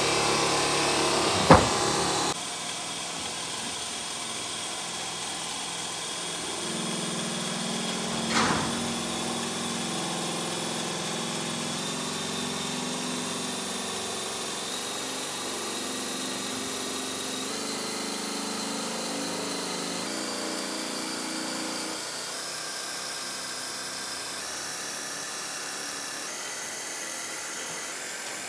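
Electric motor of a bench buffing wheel running steadily with a hum while a Bowie knife blade is pressed against the buff to polish it. A sharp click comes about a second and a half in, the machine noise drops a little just after, and a softer knock comes about eight seconds in.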